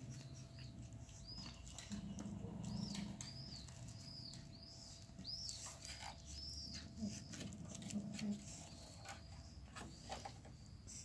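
A pug scuffling and rolling on a rough doormat as it tussles with a stuffed toy, with short low grunts. A run of high chirps, roughly two a second, sounds over it in the first half.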